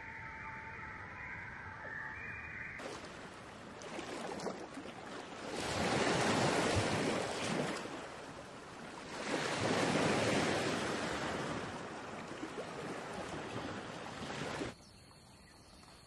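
Sea surf washing against a rocky cliff, a dense rush of water noise that swells up loudly twice and falls back, with some wind. It starts abruptly about three seconds in and cuts off suddenly near the end. Before it, a steady high-pitched tone sounds.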